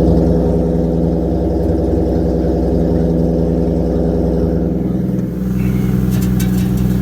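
Toyota 1JZ-GTE turbocharged inline-six idling steadily through a Ford Powerstroke diesel truck muffler jammed onto its exhaust, with a brief dip about five seconds in.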